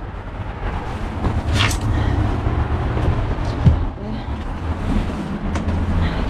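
Camera handling noise: a steady low rumble with rustling and a few light knocks as the hand-held camera is moved about.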